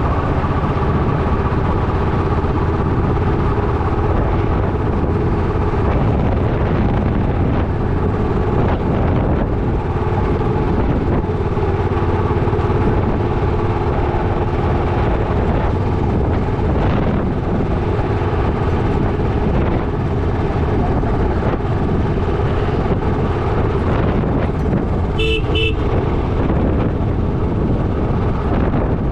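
Motorcycle engine running steadily under way, over a dense low rumble of road noise. Near the end, a vehicle horn gives two short toots.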